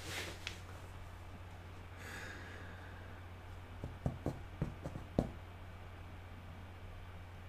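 Quiet room with a steady low hum, a short breath or sigh right at the start and a softer one about two seconds in, then a quick run of about six soft knocks or clicks around the middle.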